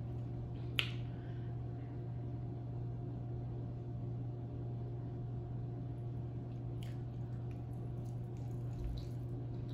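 A steady low hum with a few faint wet clicks and smacks from handling and eating a piece of rotisserie chicken coated in cheese sauce.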